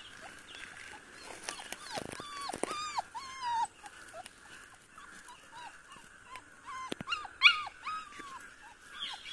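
Rottweiler–Doberman cross puppies whining and yelping in many short, high cries, busiest about two to three and a half seconds in and again around seven to eight seconds in, with a couple of sharp clicks among them.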